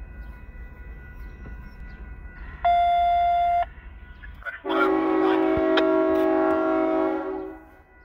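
Diesel locomotive horn, on the lead unit, a rebuilt GE AC6000CW: a short blast about three seconds in, then a long multi-note chord blast of about three seconds. This short-then-long pattern ends the grade-crossing warning signal. Throughout, the crossing bell rings steadily and a low rumble fades out about halfway.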